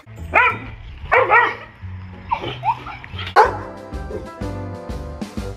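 A dog barks in several short, sharp calls over background music with a steady bass line; the music carries on alone in the second half.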